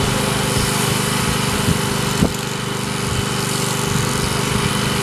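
Electric sheep-shearing handpiece running steadily with a high buzzing whine as it cuts through a ram's fleece. There are two brief knocks, the second about two seconds in.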